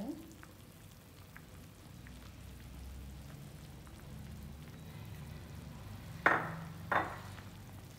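Pot of soup simmering, a steady low bubbling with faint scattered pops. Near the end come two short sharp knocks, well under a second apart.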